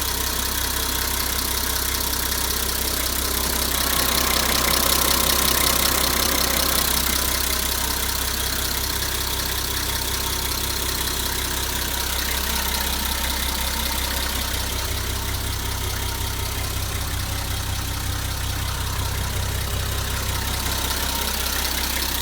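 Nissan Civilian bus's TD42 inline-six diesel engine idling steadily, a little louder about four to seven seconds in.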